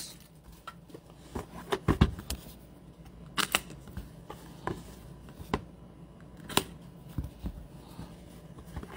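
Hands handling and unsealing a cardboard trading-card hobby box, with scattered sharp clicks and taps of the box and its wrapping.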